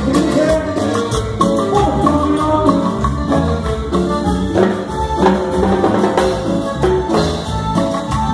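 Live band playing Latin tropical dance music, with sustained melodic notes over a steady, quick percussion rhythm.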